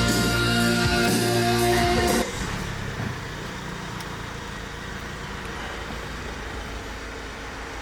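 Rock background music with guitar that cuts off about two seconds in, followed by the steady low rumble of a car running.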